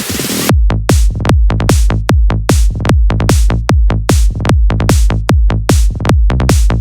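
Electronic dance music. A hissing build-up cuts off about half a second in, and a heavy kick-drum and bass beat drops in, pulsing steadily.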